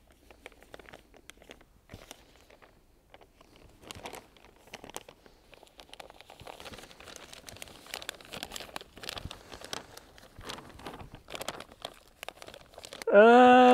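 Thin plastic vacuum-bagging film crinkling and rustling as it is handled, folded into pleats and pressed down onto sealant tape. The crackling becomes busier about four seconds in.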